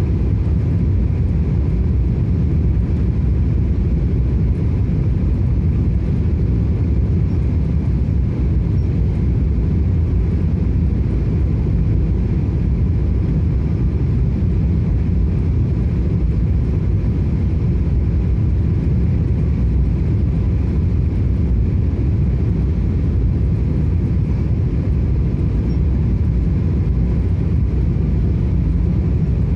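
Steady low rumble of a Boeing 777's engines and rushing air heard inside the passenger cabin, with faint steady whining tones above it.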